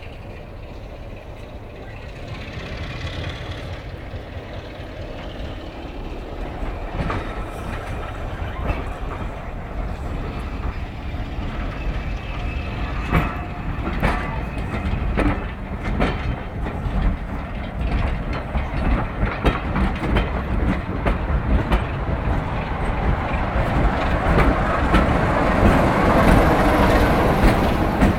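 Class 33 diesel locomotive's Sulzer eight-cylinder engine running, growing louder toward the end. A few sharp knocks about halfway through.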